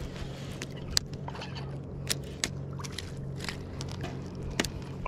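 Water sloshing and dripping as a small hooked bass is lifted out of the lake to the side of a kayak, with four sharp clicks and knocks from the rod and tackle.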